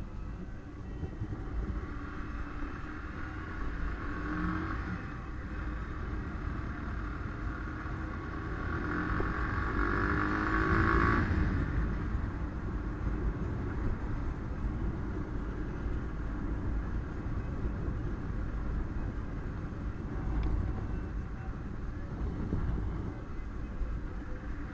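Car driving: a steady engine and road rumble that swells for a few seconds about ten seconds in, with a faint rising whine.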